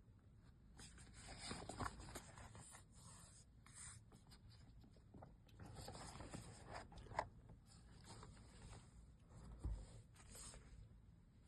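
Faint scraping and rustling of a smartphone's cardboard box and packaging being handled and slid open, with three light taps along the way.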